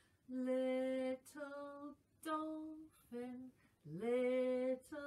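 A woman singing a slow, simple children's song alone, with no accompaniment: a run of held notes, the longest about a second each, one near the start and one near the end, with shorter notes between.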